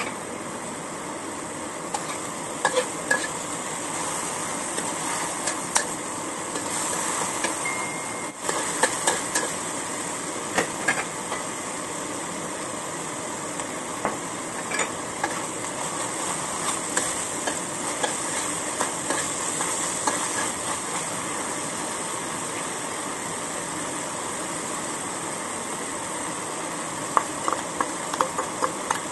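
Minced chicken sizzling in a hot wok with a steady hiss, with a spatula scraping and knocking against the pan in short clusters. Near the end a run of quick clicks comes as chopped string beans are tipped in from a metal bowl and stirred.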